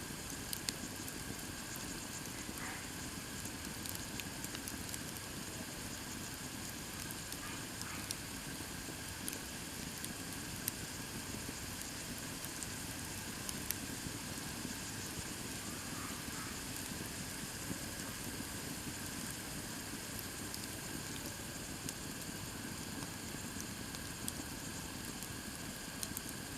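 Campfire of split firewood burning: a steady hiss with scattered sharp crackles and pops.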